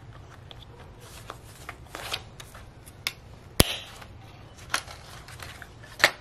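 Clear plastic cash envelopes and binder pages rustling as they are handled and flipped in an A6 ring binder, with a few sharp clicks; the loudest click comes about three and a half seconds in.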